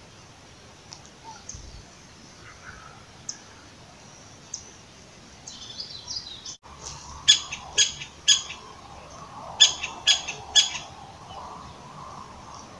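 A bird calling in sharp, high chirps: a few faint ones at first, then two loud runs of three quick chirps in the second half.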